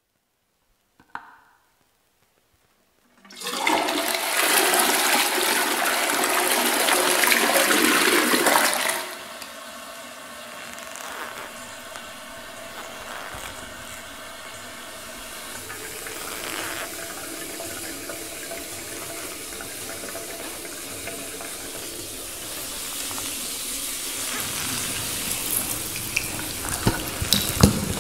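A single click, then a loud rush of flushing water for about five seconds, dropping to a quieter steady flow of water that slowly grows louder, with a few sharp clicks near the end.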